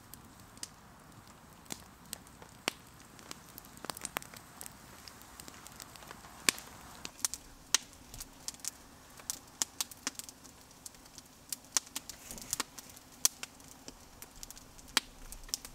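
Campfire crackling, with sharp irregular pops a few times a second.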